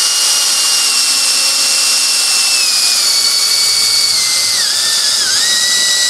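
Cordless drill with a small bit boring a pinhole through a metal can held in a vise. The motor whine holds steady, then sags in pitch in steps and dips briefly twice near the end as the bit bites under load.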